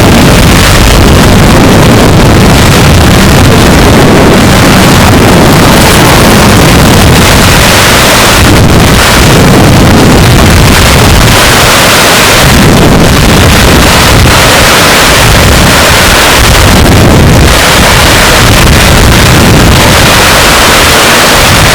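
Wind buffeting the microphone: a loud, even rumbling hiss that swells and eases in gusts every few seconds.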